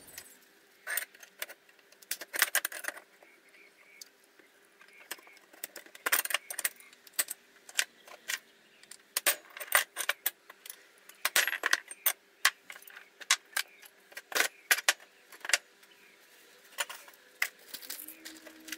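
Small metal parts clinking and rattling as they are handled and fitted, in irregular clusters of sharp clicks, under a faint steady hum.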